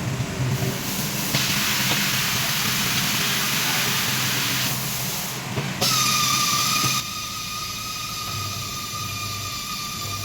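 Air hissing for about four seconds, then a short louder rush, followed by a steady high-pitched whistle with overtones. The sounds are typical of air being let out of or blown into a motorcycle tyre while it is being changed.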